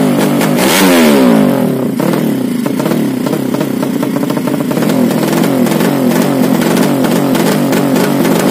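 Yamaha Jupiter drag-race single-cylinder four-stroke engine through an open racing exhaust, revved hard about a second in and dropping back, then held at a high idle with repeated small throttle blips while it is being tuned.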